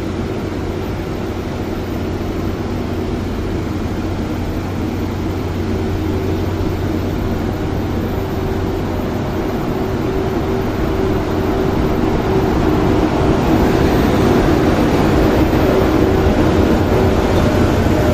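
Hitachi-built EF81 electric locomotive rolling slowly in along the platform with a steady hum. It grows gradually louder as it draws close and passes.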